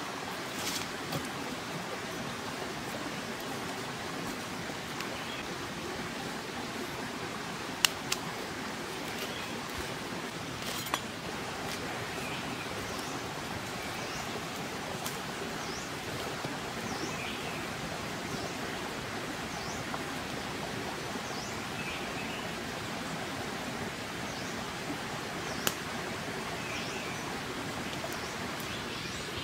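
Steady outdoor jungle ambience: an even rushing hiss, broken by a few sharp single cracks and faint, scattered bird chirps.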